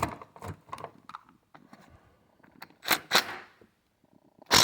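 Scattered knocks and clinks of tools on a small chainsaw while its clutch is being worked off. There are two louder knocks about three seconds in, a brief faint tone just after four seconds, and the loudest knock near the end.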